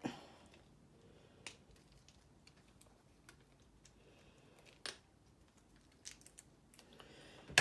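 Small RC suspension parts and hand tools being handled: a few light, scattered clicks and taps of plastic and metal, with a louder clatter at the very end.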